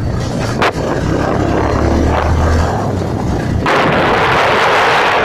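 KTM motorcycle engine running at a steady pace while riding, with heavy wind buffeting on the handheld phone's microphone that grows louder from about three and a half seconds in.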